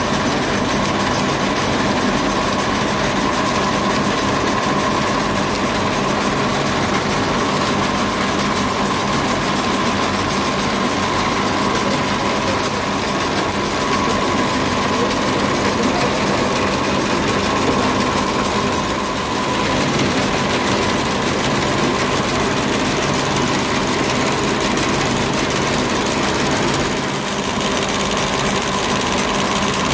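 Plastic rope-twisting machine running steadily: the whirr of belt-driven pulleys and spinning winding spools, with a steady high whine over a low hum.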